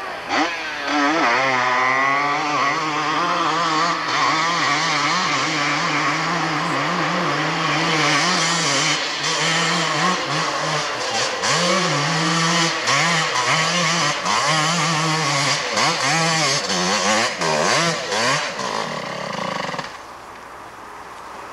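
A 250cc ATV engine revving hard under load up a steep dirt hillclimb, its pitch constantly rising and falling as the throttle is worked. The engine sound falls away sharply near the end.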